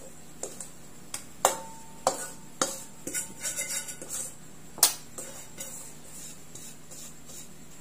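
Stainless steel mixing bowl knocking and clinking against a countertop as crumbly pie dough is tipped and worked out of it. The knocks are scattered and sharp, with the two loudest about a second and a half and about five seconds in. The bowl rings briefly after the first loud knock.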